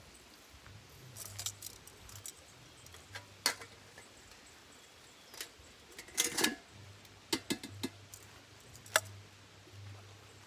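Scattered sharp metallic clicks and clinks from grilling tools being handled at a charcoal grill, a cluster of them about six seconds in and the sharpest single click about nine seconds in.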